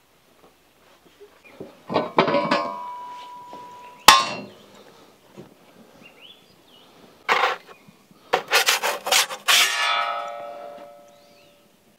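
Metal cookware being handled: several clanks, with a quick run of them about eight seconds in, each leaving a ringing tone that fades over a second or two.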